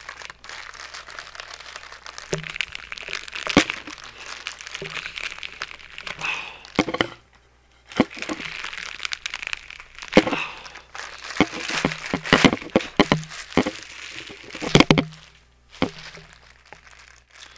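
Plastic poly mailer bag crinkling and crackling in irregular sharp crackles as it is crumpled in the hands and pushed against the face to break it open, with a short pause about seven seconds in.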